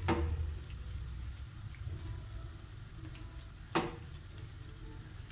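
Pakoras deep-frying in oil in a wok, a steady crackling sizzle. A spatula knocks against the pan twice, once right at the start and louder near the end.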